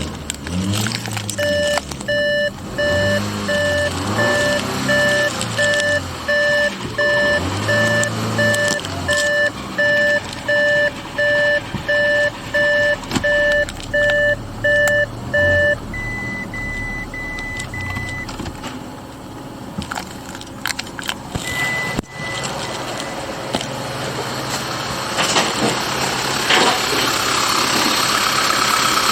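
Audi A8 Hybrid's dashboard warning chime beeping repeatedly, about one and a half times a second for roughly the first half, over a low whir that rises and falls. A few higher short beeps follow, and over the last few seconds the car's 2.0-litre four-cylinder turbo engine starts and runs.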